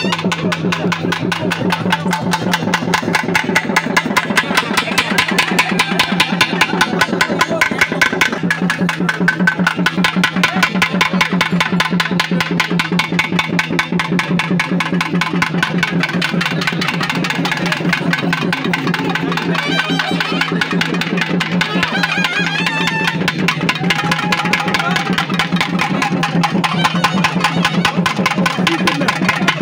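Drums played live in a fast, steady, unbroken beat over a steady low tone.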